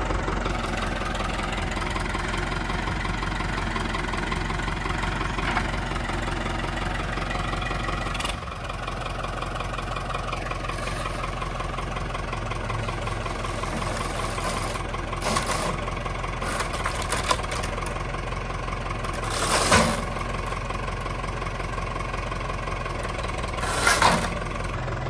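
Hesston farm tractor engine running steadily while its front-end loader lifts a strapped chicken coop, with a few sharp clanks and knocks in the second half, the loudest about two-thirds through and near the end.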